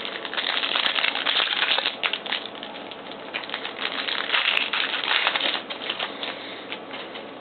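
Trading-card pack wrapper crinkling and tearing open, with cards being handled: a rapid, busy crackle that thins out near the end.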